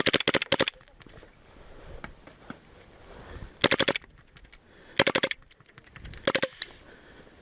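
Airsoft gun firing four short full-auto bursts of rapid clicking shots, the first right at the start and three more in the second half.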